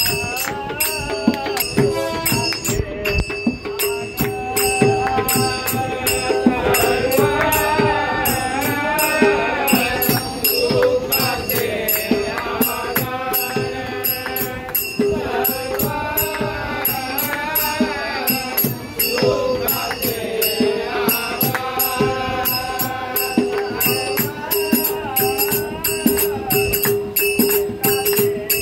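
Men singing a devotional bhajan together in long phrases, over a fast, steady clashing of small brass hand cymbals (taal) keeping the rhythm.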